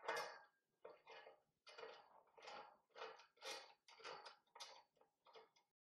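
Faint run of short metallic clicks, about two to three a second and slightly irregular, of an Allen key turning a cap screw to fix a glass clamp to a metal post.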